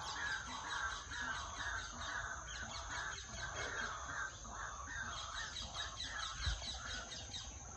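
Birds calling over and over in short, evenly repeated notes, about two a second, with a steady high insect drone behind them.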